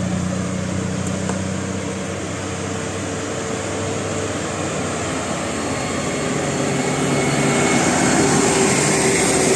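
Passing road traffic: vehicle engines and tyre roar, steady at first. A heavier vehicle draws near and the noise grows louder over the last few seconds.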